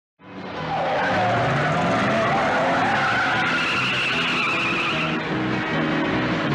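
Car engines running with tyres squealing, starting abruptly out of silence.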